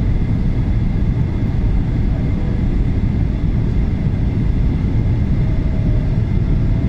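Airliner cabin noise on final approach: a steady low roar of the engines and air rushing past the fuselage, with a faint high steady whine.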